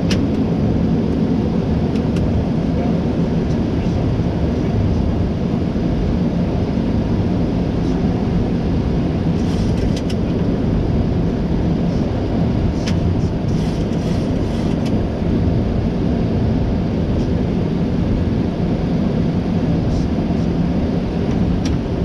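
Steady flight-deck noise of a Boeing 737 MAX in descent on approach: an even rush of air with a low hum beneath. A few faint clicks sound about ten seconds in and again a few seconds later.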